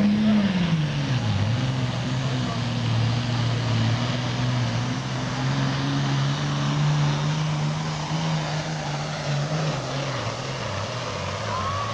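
Heavy diesel super stock pulling tractor running under full load while pulling the sled, its engine note dropping sharply about a second in, then holding steady and dropping again near the end.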